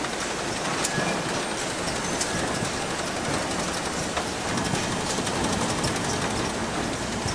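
Ice cream production-line machinery running steadily: a dense mechanical clatter and hum with many faint, rapid clicks.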